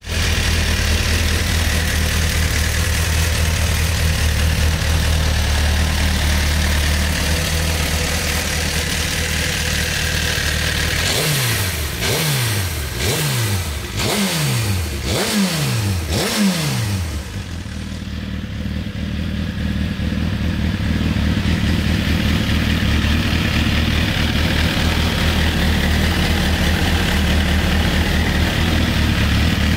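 Suzuki GSX-R1000's inline-four engine idling steadily, then blipped six times in quick succession, about one rev a second, each falling straight back before it settles to idle again.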